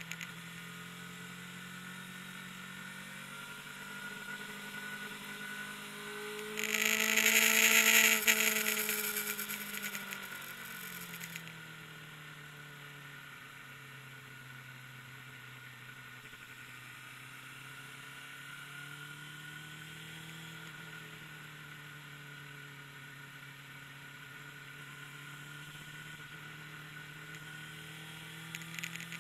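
Motorcycle engine running at low, fairly steady revs, its note drifting slowly up and down. About seven seconds in, a much louder rush of noise with an engine note that rises and then falls lasts some four seconds.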